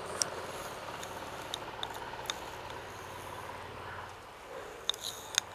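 A metal spoon clinking and scraping against a small ceramic bowl as oil is spooned out: a few sharp clicks spread through, then a quick cluster of clicks near the end, over a steady background hiss.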